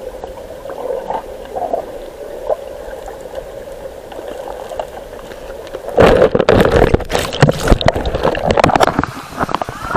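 Water heard through an action camera underwater: a muffled steady hum, then about six seconds in, loud bubbling and churning water full of crackles.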